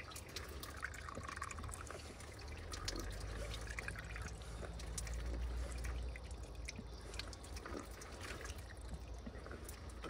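Water running from an outdoor spring tap, trickling through cupped hands and splashing onto a stone basin, with many small drips and splashes. A low rumble sits under it, strongest in the middle.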